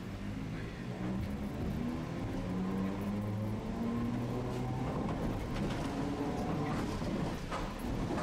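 Tosaden streetcar's traction motors and gears whining, the pitch climbing steadily as the tram accelerates, with a few sharp clicks in the second half.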